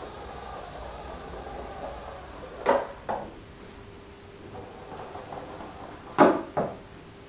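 Two pairs of short, sharp knocks, the second pair a little over three seconds after the first, over a faint steady hum.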